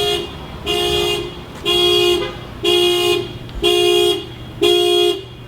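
Car horn honking in a steady series of identical blasts, about one a second, each a little over half a second long.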